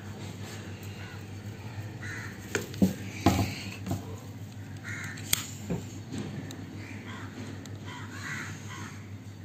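Crows cawing several times in the background, with a few sharp clicks and knocks from close handling about three and five seconds in.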